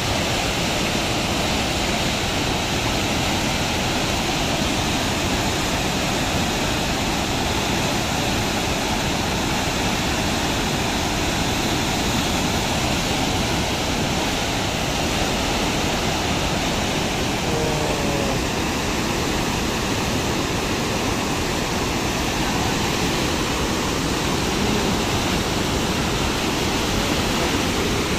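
Muddy floodwater of a river in spate rushing past in a steady, dense torrent.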